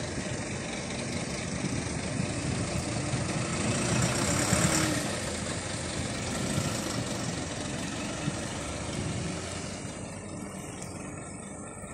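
Isuzu KV100 truck's diesel engine idling steadily, with a hiss that swells and fades about four to five seconds in.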